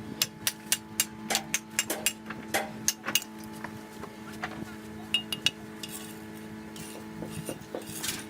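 Metal hand tools tapping and clinking during cement work: about a dozen sharp, irregular clinks over the first three seconds and a few more about five seconds in, over a steady low hum.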